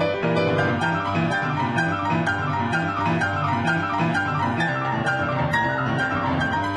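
Blues piano playing: a steady, evenly repeated bass figure in the low register under quick running figures higher up.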